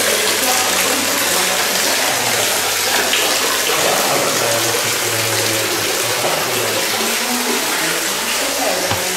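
Water pouring steadily from a spout into a shallow stone basin, a continuous splashing rush.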